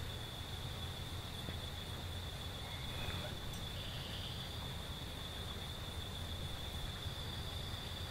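Insects droning with a steady high-pitched buzz over a low background rumble; a second, shorter insect buzz joins about four seconds in.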